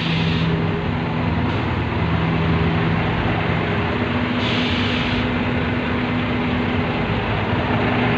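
Truck engine idling steadily, with a brief hiss about four and a half seconds in.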